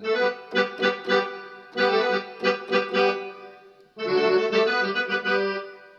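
Yamaha PSR-E463 keyboard's built-in accordion voice playing short rhythmic chord stabs, then one held chord about four seconds in.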